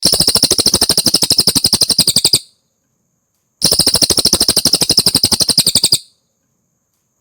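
Cililin bird singing: two bouts of a rapid, evenly repeated trill, about fifteen notes a second, each lasting about two and a half seconds, with a pause of just over a second between them.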